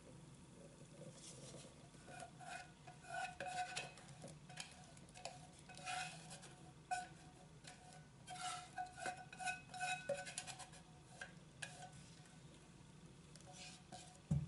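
Silicone spatula scraping lemon cream out of a saucepan into a stainless steel mixing bowl: a faint series of short scrapes and light knocks, several with a brief metallic ring as pan and spatula touch the bowl.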